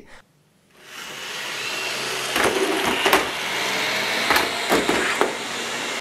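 Liectroux G7 robot vacuum running: its suction fan comes up about a second in as a steady rushing noise and holds there, with a few sharp knocks along the way.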